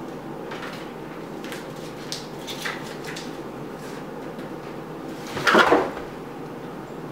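Board-game pieces and cards being handled on a wooden table: light clicks and rustles, then a louder short clatter about five and a half seconds in, over a steady low hum.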